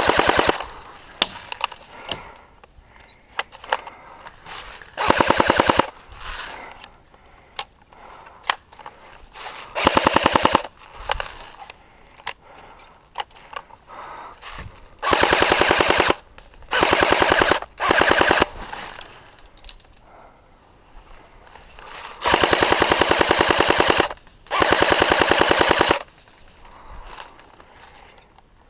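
Airsoft guns firing full-auto bursts of rapid, evenly spaced shots, about eight bursts in all, the longest two near the end at about a second and a half each. Scattered single pops and clicks come between the bursts.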